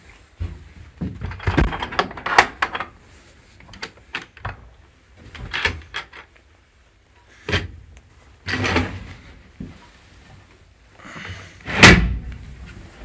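A metal-framed door in a wood-lined kennel cabin and its bolt being handled: scattered knocks, clicks and short scrapes, with one loud bang near the end.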